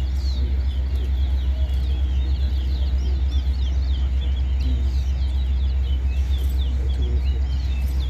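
Caged competition songbirds singing: a quick stream of short, high chirping notes, one after another. A steady low rumble runs underneath.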